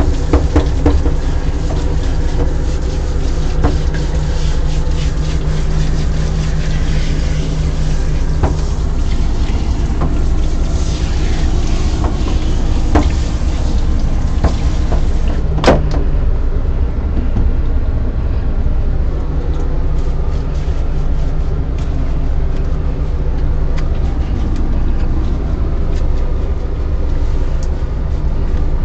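Water spraying from a grooming tub's hand-held spray nozzle onto a wet dog's coat, over a steady low motor hum. A sharp click about halfway through, after which the hiss is weaker.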